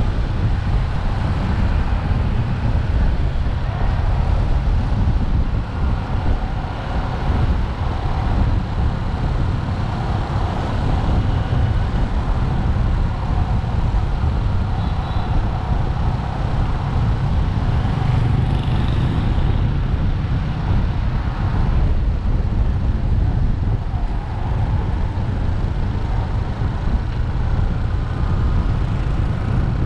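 Motorcycle engine running steadily while riding, mixed with road noise.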